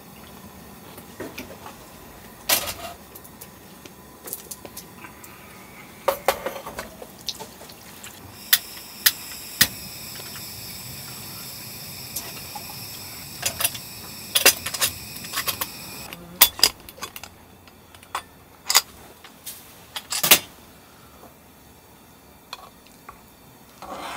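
Dishes and cutlery clinking and knocking at a table: scattered sharp clinks, with a steady high hiss under them for several seconds in the middle.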